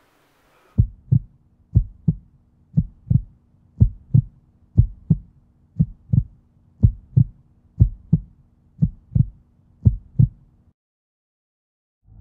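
Heartbeat sound effect: slow double thumps about once a second, ten in all, over a faint steady low hum. It all cuts off suddenly a little over ten seconds in, and a rush of wind-like noise starts near the end.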